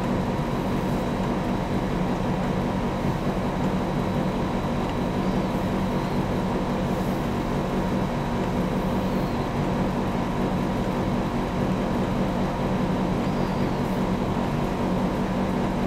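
Steady mechanical hum of a room air conditioner running. The floppy drive's stepping clicks do not stand out from it.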